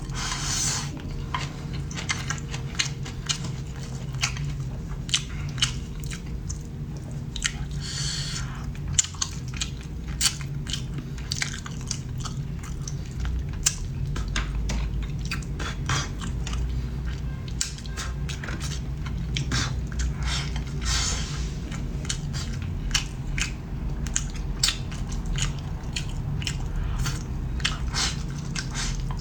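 A person chewing and biting food close to the microphone, with many short sharp clicks throughout, over a steady low hum.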